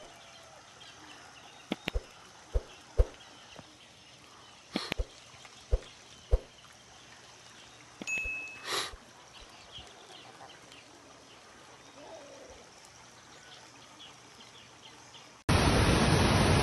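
Scattered sharp knocks and a short burst of noise over a faint outdoor background. Near the end a loud, steady rushing of water cuts in abruptly, typical of fast-flowing flood water or heavy rain.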